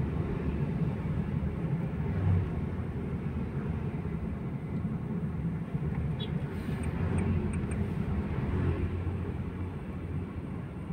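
Steady low rumble of a car's engine and tyres heard from inside the cabin while driving slowly in town traffic. It eases off a little near the end as the car slows behind stopped traffic.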